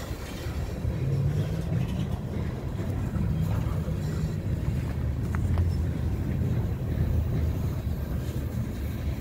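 Freight train of tank cars rolling past close by: a steady low rumble of steel wheels on the rails.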